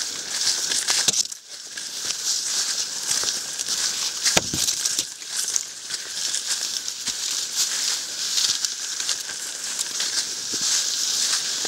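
Footsteps crunching and rustling through dry fallen leaves at a brisk walking pace, with a short lull a little over a second in and a sharp click about four seconds in.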